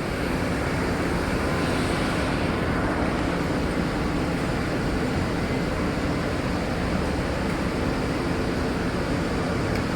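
Steady drone of industrial plant machinery running, an even noise with a low hum that does not change.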